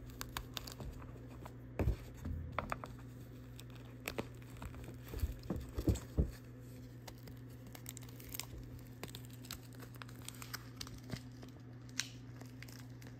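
Plastic film crinkling and small scattered clicks as a bracelet is worked out of a jewelry box insert by hand, with a few louder knocks in the first half, over a steady low hum.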